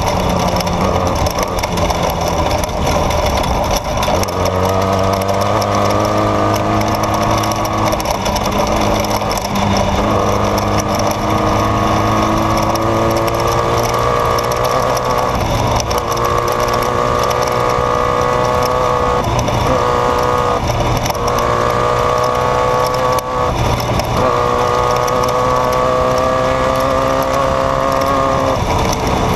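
Off-road race vehicle's engine running hard at speed, its pitch climbing steadily and dropping back several times, over a continuous rattle and rumble of the vehicle crossing rough desert terrain.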